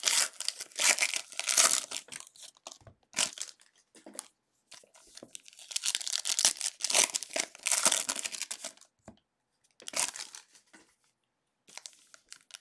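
Shiny plastic wrappers of Donruss football card packs being torn open and crinkled by hand, in irregular bursts of crackling with short pauses between them.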